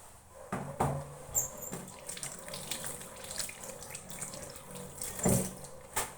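Irregular knocks and scrapes of kitchen work with utensils, with loud knocks about half a second in and again about five seconds in.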